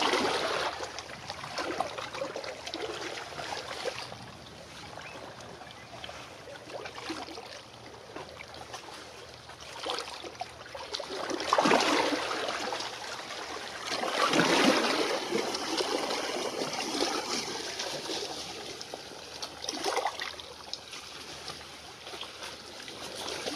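Small waves washing and splashing on the rocky shore in uneven surges that swell and fade. The loudest come about twelve and fifteen seconds in.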